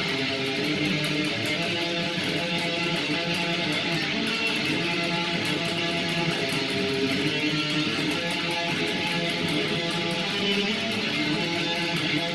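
Live band music with electric guitars playing, at a steady level.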